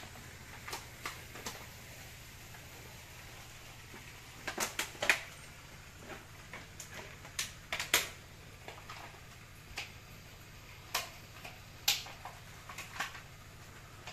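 Irregular sharp clicks and light knocks, a dozen or so, loudest about five, eight and twelve seconds in, over a faint steady low hum.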